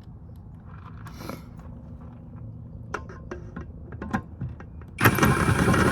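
A few light clicks of tools against metal, then about five seconds in a loud one-second whirring burst, most likely a cordless driver with a Phillips bit running a screw.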